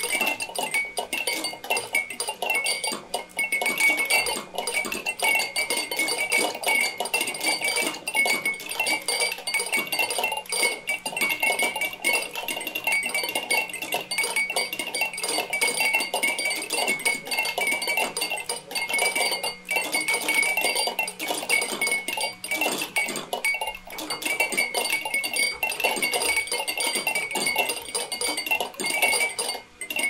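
Many drinking-bird toys bobbing at once: a dense, continuous clatter of small clicks and clinks over a steady high ringing.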